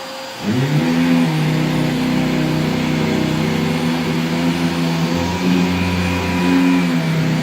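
Riccar Tandem Air R40 upright vacuum running with its roller brush jammed. About half a second in, a loud low hum rises sharply and then holds steady. This is the sign of the stalled brush roll.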